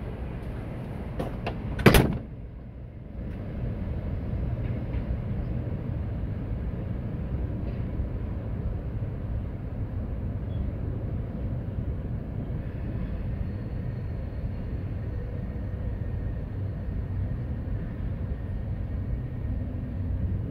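Steady low rumble of a freight train running, with no horn sounding. About two seconds in there is one sharp, loud bang, followed by a second or so of quieter sound before the rumble settles in.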